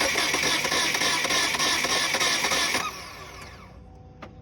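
Starter cranking the 2006 Kia Sportage's 2.7 L V6, which has a broken timing belt. The engine spins over fast and evenly and too easily, and never catches. The cranking stops about three seconds in, and the engine spins down with a falling whir.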